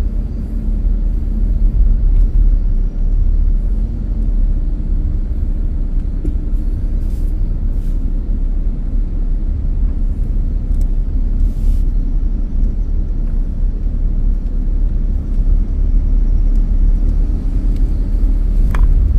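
Car driving along a road: a steady low rumble of engine and tyre noise.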